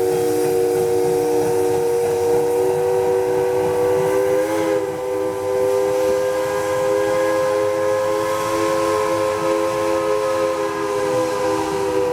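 Steam locomotive's chime whistle held in one long, loud blast, several tones sounding together as a chord, with a brief waver in pitch about four and a half seconds in.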